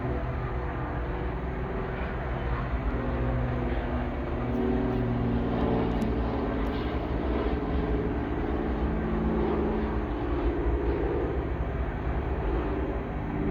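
Union Pacific diesel locomotives, including an SD70ACe, running under power with a steady engine drone over a constant low rumble. The pitched hum shifts and grows louder through the middle.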